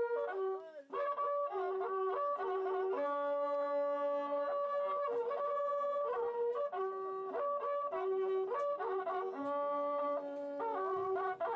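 Coiled cow-horn trumpets (wakrapuku) playing a melody of long held notes that step up and down in pitch, with a brief break about a second in.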